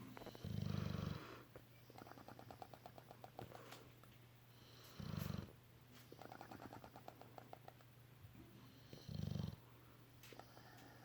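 Bulldog snoring in its sleep, with three loud low breaths about four seconds apart and its lips fluttering and bubbling in rapid pulses between them.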